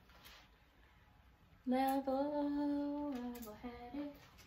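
A person humming one long, nearly level note, starting about a second and a half in, with a couple of small steps in pitch before it stops.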